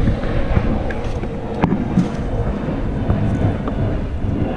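Audi S3's engine running steadily, with wind buffeting the microphone and a sharp click about one and a half seconds in.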